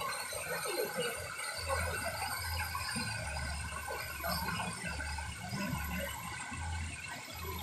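Shallow stream rushing over rocks, a steady rush of water, with an intermittent low rumble from about a second and a half in.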